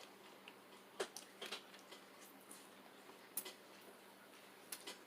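Faint, scattered clicks and cracks of eating a seafood boil by hand: crab-leg shells cracking and food being chewed, about half a dozen short sounds spread through the quiet.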